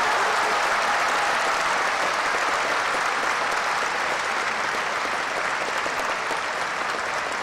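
Crowd applauding steadily in a large hall, greeting a point just awarded in a kendo bout, slowly dying down.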